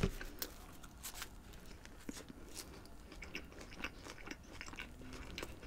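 Faint close-up chewing: soft, scattered mouth clicks and small crunches of a mouthful of fast food.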